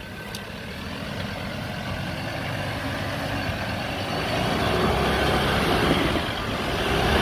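Troller T4 4x4's engine pulling at low speed under load as the vehicle crawls through a deep rut on a dirt trail, growing steadily louder over the first few seconds.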